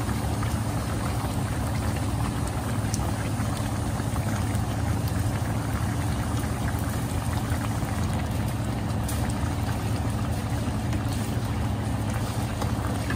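Coconut-milk fish broth boiling hard in a wok, a steady bubbling over a low steady hum, with a few faint taps of a wooden spatula in the pan.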